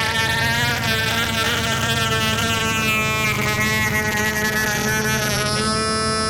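Modular synthesizer playing a steady, buzzy drone with many overtones, its upper overtones wavering and sweeping. Near the end the sweeping stops and the plain drone holds on.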